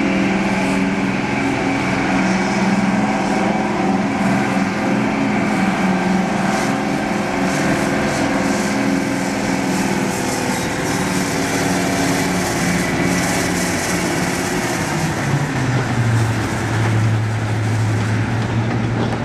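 Class 55 Deltic diesel locomotive running past, its two Napier Deltic two-stroke engines giving a steady, loud engine note. The note drops to a lower pitch about 16 seconds in.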